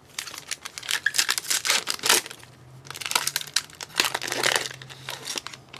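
A trading-card pack's wrapper being torn open and crinkled in the hands, in two long bouts of dense crackling with a short lull between them.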